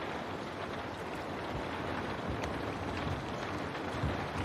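Steady rain pattering against window glass, with scattered individual drop taps over a continuous hiss and a low rumble underneath.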